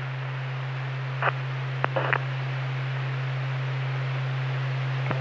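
Police scanner radio channel open with no voice: steady static hiss over a low hum, with a few brief crackles a little over a second and about two seconds in. It cuts off abruptly at the end.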